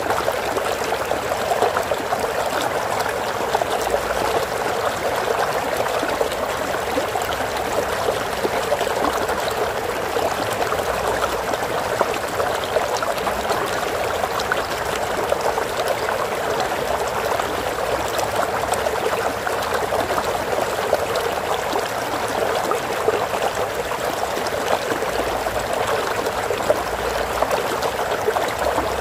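Stream water flowing and trickling steadily over stones, a continuous bubbling rush without change.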